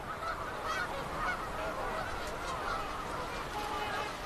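A large flock of birds calling together: a dense, steady chorus of many short overlapping calls, the sound of flocks arriving on spring migration.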